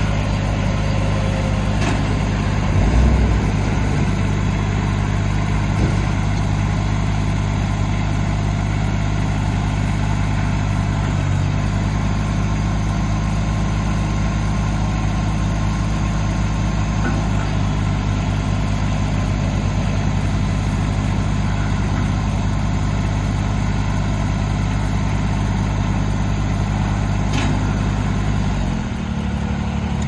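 Kubota BX25D compact tractor's three-cylinder diesel engine running steadily while the front loader is worked, its note dropping near the end.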